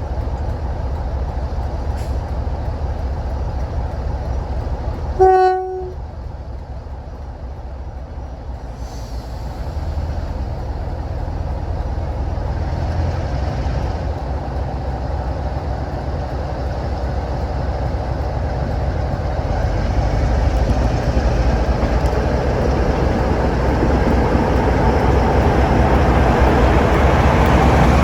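Diesel locomotive sounding its horn in one short blast about five seconds in, over a steady low engine rumble. The rumble grows louder through the rest as the locomotive draws nearer.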